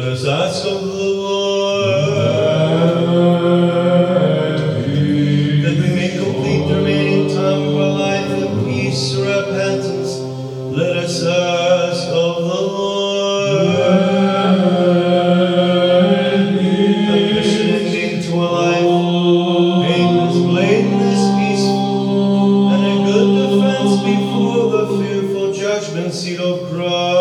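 Unaccompanied Orthodox liturgical chant by several voices, long notes held over a steady low drone, in a reverberant church.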